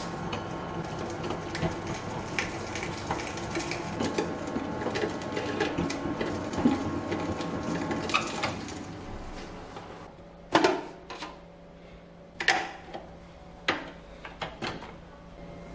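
Ultra tabletop wet grinder running, its steel drum turning the stone rollers through idli batter with a steady motor hum and light scraping. About nine seconds in it is switched off, and several sharp knocks and clatters follow as the lid and roller arm are handled.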